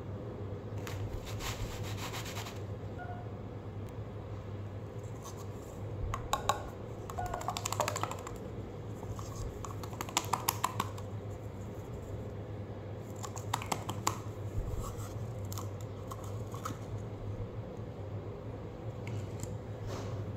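Bursts of clicking and crackling as a clear plastic cup of slime is handled, coming in clusters a few seconds apart over a steady low hum.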